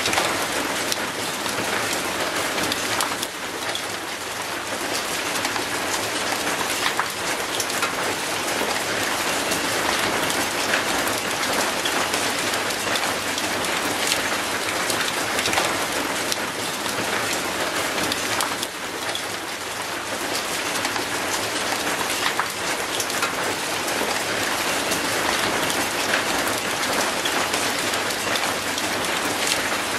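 Steady rain falling on wet concrete and an old rusty metal gate: a dense, even hiss made of countless small drop ticks.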